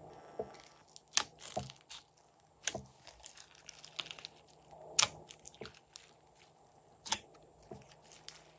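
Glossy slime being stretched and pressed by hand into clay and sprinkles: sticky pops and crackles, four sharp ones standing out among smaller ones.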